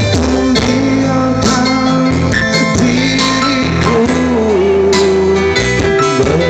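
Instrumental passage of an Indonesian pop love song played on an electronic keyboard (orgen), with a held, gliding melody line over a steady bass and regular percussion strokes, between sung lines.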